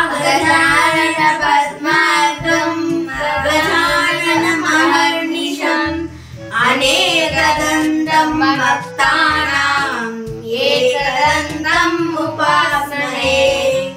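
A devotional song: a high singing voice carrying a melody over instrumental backing with a steady stepping bass line.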